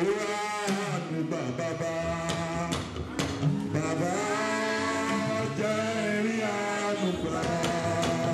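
Gospel praise music with singing over steady sustained accompaniment.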